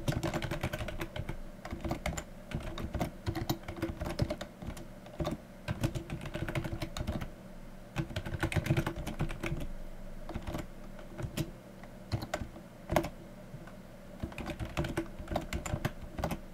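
Computer keyboard keys clicking in uneven runs of typing, with short pauses between runs, over a faint steady hum.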